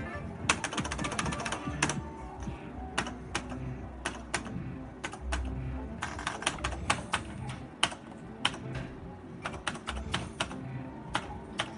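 Merkur slot machine clicking. A fast run of ticks comes about half a second in, then sharp single clicks are scattered through the rest as the reels spin and stop and buttons are pressed, with the machine's electronic music underneath.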